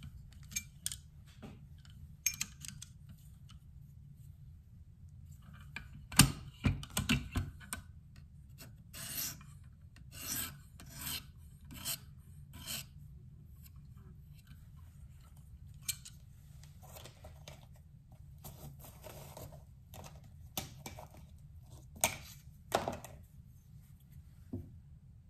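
Rasping strokes of a KME 140-grit diamond hone drawn along a knife edge held in a guided sharpener's clamp, a few passes under a second apart, with sharp clicks and knocks as the clamp is flipped and handled. These are the passes that check the burr flips back once the edge is apexed.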